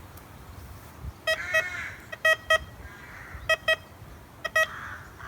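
Tesoro Bandido metal detector giving short beeps in clusters of two or three as the coil passes over buried metal in the lawn: its target signals.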